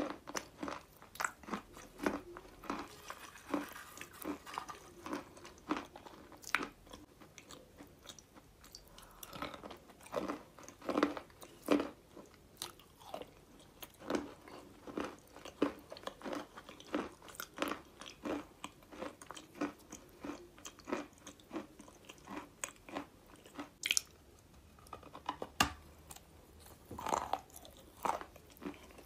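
Close-up chewing and biting of chunks of white chalk coated in brown clay paste: irregular crisp crunches, several a second, as the chalk is bitten and ground between the teeth.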